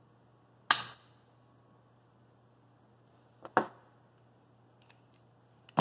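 Spring-loaded alligator clamps of a battery charger clicking as they are unclipped from car battery terminals: three short, sharp clicks, about a second in, about three and a half seconds in, and at the end. A faint steady low hum runs underneath.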